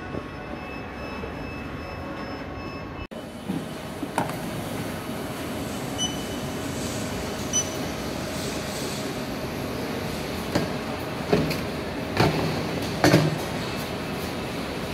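Powered roller conveyor line running with a steady rumble as plastic totes roll along it, with scattered knocks and clunks of totes on the rollers and stops, the loudest a few seconds before the end. Two short high beeps sound about six and seven and a half seconds in.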